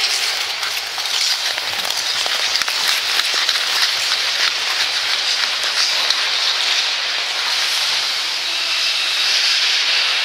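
Ice skate blades scraping across the ice as skaters push off and glide: a steady hiss with many fine scratchy strokes.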